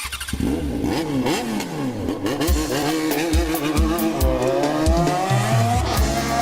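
An engine revving up and down repeatedly, joined about two seconds in by music with a steady thumping kick-drum beat.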